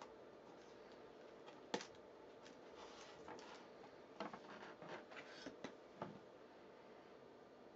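Light clicks and scraping from hands handling 16 mm film and the plastic double-spiral developing reel as the film is loaded. There is one sharper click about two seconds in and a cluster of clicks between about four and six seconds.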